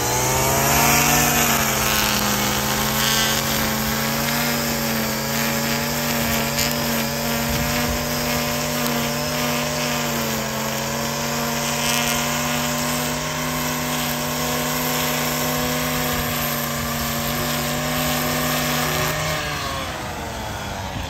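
Gas string trimmer's small engine revving up at the start, then held at a steady high speed while its line edges grass along a concrete sidewalk, before the throttle is let off and it drops back toward idle near the end.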